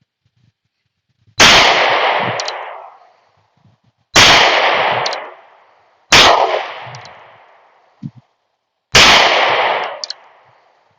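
North American Arms .22 Magnum mini revolver firing four shots, two to three seconds apart, each shot dying away over a second or two.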